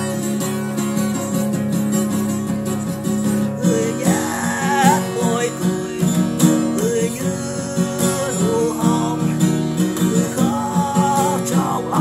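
Acoustic guitar strummed in steady chords, with a wavering melody line joining about four seconds in.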